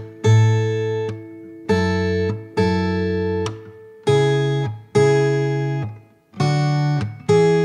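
Background music: guitar chords struck one at a time, each ringing out and fading, seven in all about a second apart.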